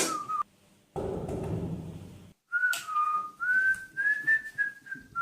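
A person whistling a tune by mouth, the pitch stepping up and down from note to note. It starts with a short falling whistled note, then after a brief shuffling noise picks up about two and a half seconds in and carries on.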